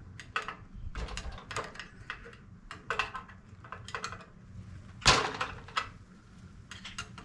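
Screwdriver tapping around a steel snap ring in a flex-joint housing: an irregular run of sharp metal clicks, one louder knock about five seconds in, as the ring is checked for being fully seated in its groove.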